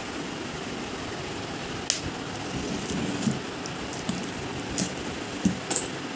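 Hands handling a cardboard box, with a few light knocks and scrapes of the cardboard, over a steady background hiss.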